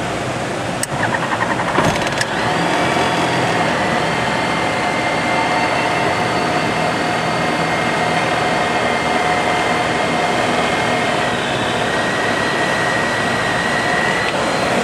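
Pipistrel Sinus motor glider's engine being restarted in flight. Under cockpit wind noise there is a click, then a brief stretch of cranking, and the engine catches about two seconds in. It then runs steadily, dropping slightly in pitch near the end as the revs come down.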